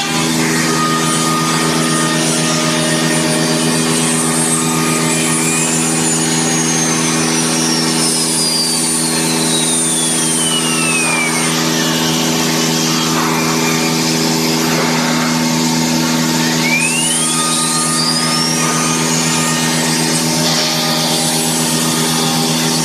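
4-axis CNC wood router running: a steady mechanical hum under the spindle's high whine. The whine slides down in pitch over several seconds while the head is lifted clear of the wood, then climbs back up near the end as the spindle speeds up to cut again.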